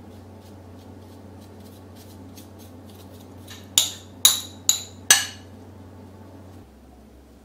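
A spoon knocking sharply against a bowl four times in quick succession, each knock ringing briefly, as minced garlic and ginger paste is tapped off into a stainless steel mixing bowl. Lighter ticks of utensil on dishware come before it.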